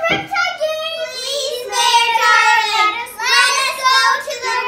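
A young girl singing in a high child's voice, holding notes and gliding between them.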